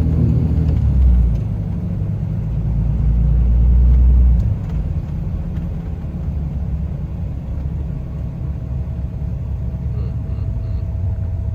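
Cummins diesel truck engine and road rumble while towing a trailer, loud for the first four seconds or so, then easing to a lower steady drone.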